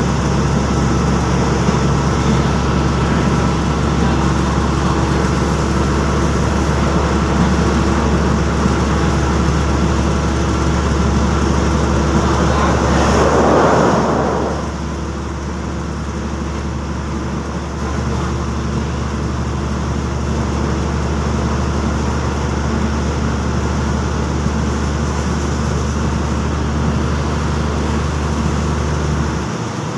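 Diesel train running with a steady low engine hum. About halfway through there is a loud rushing burst, after which it runs a little quieter, and the low hum cuts off near the end.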